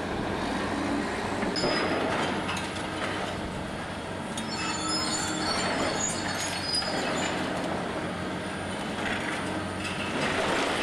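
Hydraulic demolition excavator, a Liebherr 944, running steadily while its crusher jaw bites into a concrete pillar: crunching, grinding concrete over the engine hum, with high-pitched metal squeals about halfway through.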